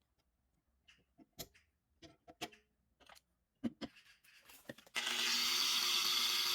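Light clicks and knocks of tools and workpieces being handled, then about five seconds in a power tool starts abruptly and runs with a steady, hissing whine.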